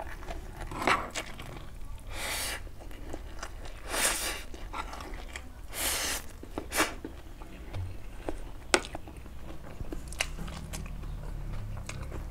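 Close-up mouth sounds of a man eating stir-fried instant noodles: three long slurps about two seconds apart in the first half, then chewing with wet lip smacks and sharp clicks.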